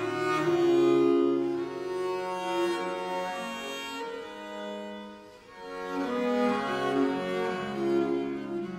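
Renaissance music played by an early-music ensemble: slow, sustained notes in several overlapping parts, easing off briefly about five seconds in before rising again.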